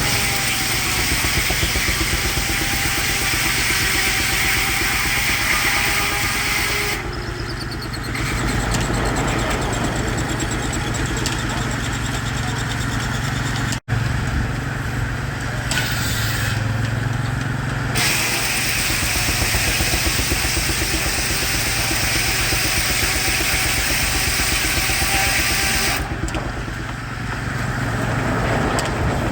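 Circular sawmill blade cutting through a log, a high hissing whir over the steady low hum of the running mill, dropping away briefly three times as the blade comes out of the cut.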